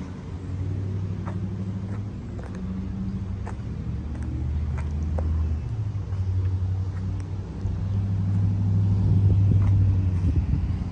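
Car engine idling steadily, a low even rumble that grows louder near the end as the rear of the car and its exhaust come close.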